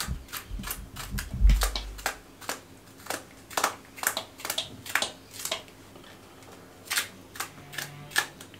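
A chef's knife slicing a peeled bitter gourd into thin rings held in the hand: an irregular run of crisp clicks, about two or three a second, as the blade cuts through the firm flesh and the slices drop into a plastic bowl. There is a dull thump about one and a half seconds in and a short pause about two-thirds of the way through.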